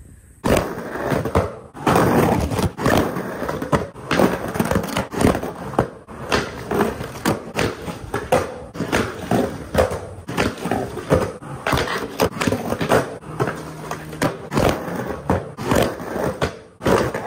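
Skateboard with Independent Stage 4 trucks grinding a concrete curb: metal trucks scraping along the edge, wheels rolling on concrete, and a busy run of clacks and impacts as the board hits and leaves the curb.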